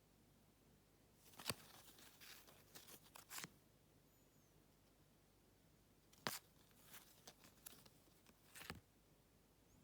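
Packaging being handled and torn open in two short bouts, each starting with a sharp click and followed by about two seconds of crinkling and tearing.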